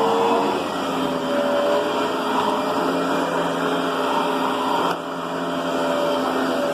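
Riccar Brilliance vacuum cleaner running steadily, a motor whine over a constant rush of air, with a brief click and a short dip in loudness about five seconds in.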